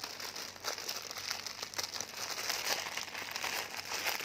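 Thin clear plastic packaging (crispack cellophane) crinkling and crackling as it is handled by hand.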